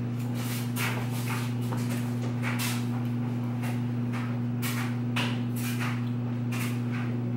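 Cooking at a stove: irregular short scrapes and rustles of a utensil working food in a pan, several a second, over a steady low hum.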